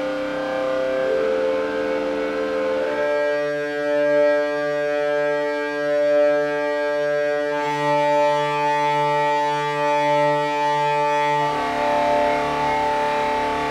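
Raw dungeon synth music: held synthesizer chords that shift to a new chord about three seconds in and again near the end, over a low note throbbing steadily in the middle.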